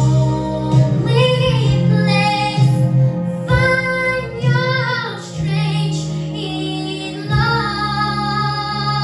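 A girl singing a slow ballad into a handheld microphone over instrumental backing music, her notes gliding in pitch. She holds a long sustained note over the last second and a half or so.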